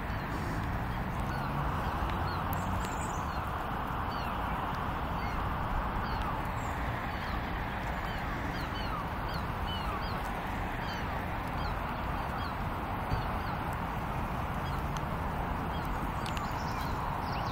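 Many short, high chirps of small birds scattered over a steady background hiss.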